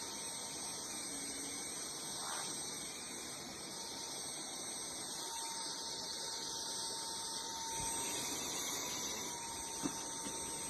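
Cordless stick vacuum cleaner running steadily: an even hiss with a thin high-pitched whine, and a single short tap near the end.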